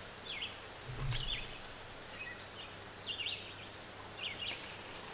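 Short, high songbird chirps repeating about once a second, with a soft low bump about a second in.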